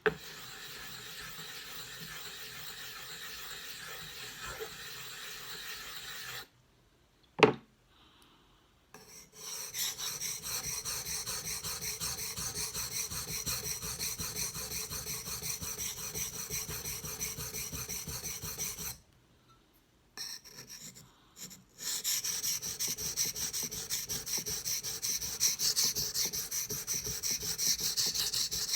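Steel knife blade being stroked back and forth on a wet whetstone to sharpen the rounded-off part of the edge: fast, rhythmic scraping in runs of several seconds, with two short pauses and a single sharp click in the first pause.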